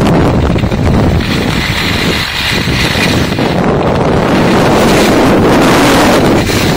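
Loud, steady wind buffeting a phone's microphone during a fast ski descent, mixed with the hiss and scrape of skis on packed snow.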